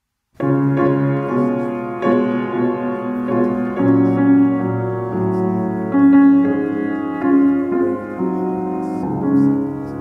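Piano playing slow chords that change about once a second, starting suddenly about half a second in.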